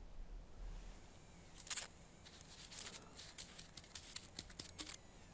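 A run of irregular sharp crackles and rustles.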